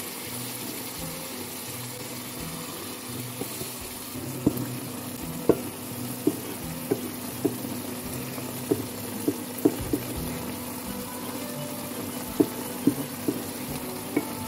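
Chicken breast pieces sizzling and bubbling in a pan of fat and water, a steady hiss. From about four seconds in come sharp, irregular taps, one or two a second, as a wooden spatula stirs them.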